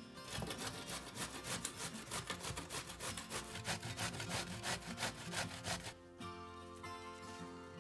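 Zucchini being grated by hand on a stainless steel box grater: quick repeated rasping strokes that stop about six seconds in, with background music under them.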